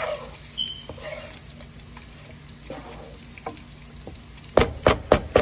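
Wooden spatula stirring and scraping cooked brinjal rice around a non-stick pan, with soft scrapes and small knocks. Near the end comes a quick run of about five loud knocks.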